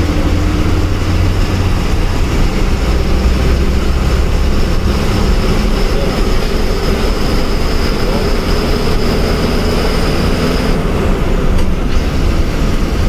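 Diesel engine of a KSRTC ordinary bus running steadily under way, heard from the driver's cabin as a loud low rumble with road noise. A faint high whine runs alongside and stops about eleven seconds in.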